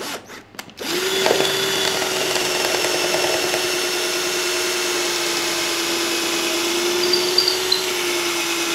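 A few light knocks, then a cordless drill starts just under a second in and runs at a steady speed, boring a dowel hole into a wooden sofa frame.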